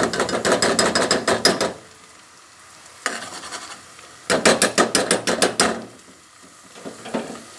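Metal spoon scraping and clinking rapidly against an aluminium pot of frying onions, in two quick runs of several strokes a second, one at the start and one past the middle. Between the runs the onions sizzle softly.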